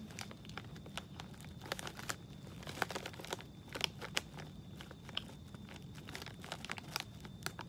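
A snack bag crinkling in the hands, with crunching as baked cheddar cheese balls are chewed: scattered, irregular crackles and crunches.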